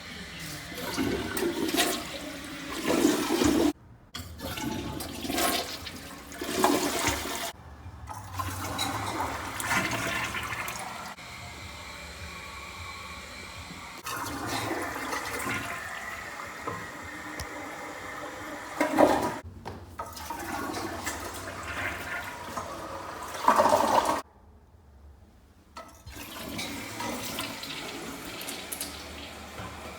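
Toilets flushing, several flushes in a row in separate short takes, each cut off abruptly.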